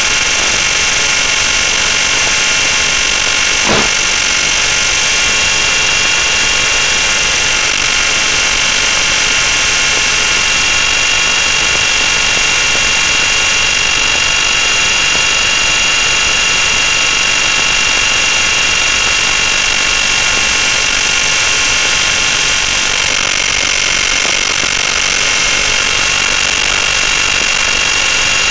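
Electric RC helicopter in flight, heard from its onboard camera: a steady high-pitched motor and rotor whine, with a brief tick about four seconds in.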